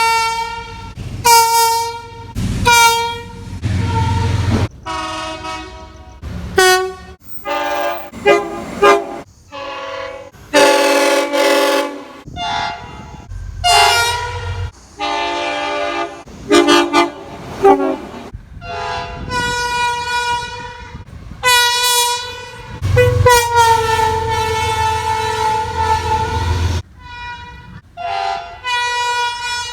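Train air horns sounding a rapid string of short and long blasts. Several different horns with different chords take turns, with low train rumble beneath some blasts.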